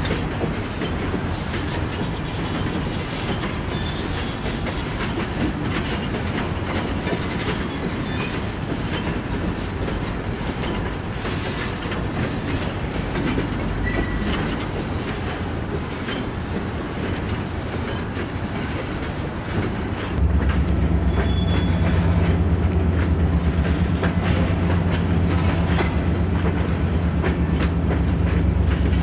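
Freight train cars rolling past, a steady rumble with wheels clicking over rail joints. About twenty seconds in it suddenly becomes louder and deeper, with a steady low hum under the clatter.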